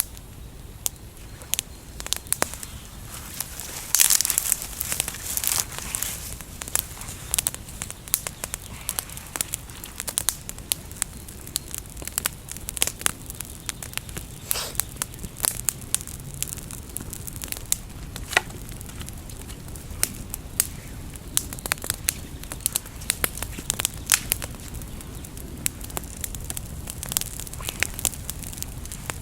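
Newly lit campfire of natural kindling crackling, with many sharp, irregular pops that come thickest about four to six seconds in, over a low steady rumble.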